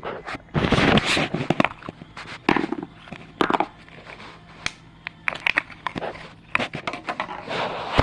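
Toy packaging being torn open and crinkled by hand: a run of crackles and clicks with several short rustling tears.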